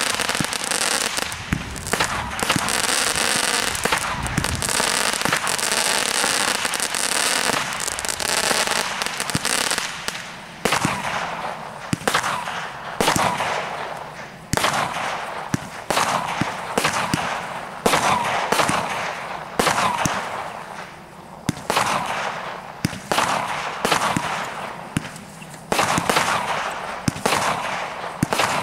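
A 256-shot firework barrage cake firing. For about the first ten seconds it makes a dense, continuous stream of noise. After that come separate shots and bursts every one to two seconds, each trailing away in echo.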